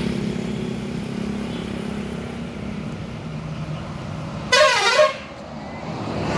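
Steady engine and road noise, then about four and a half seconds in a bus's multi-tone telolet air horn sounds one short, loud blast of about half a second, its pitch dipping and coming back up.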